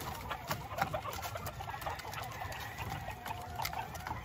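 Gamecocks in a rearing yard, with a long, drawn-out rooster call starting about halfway through, over light clicks and rustling.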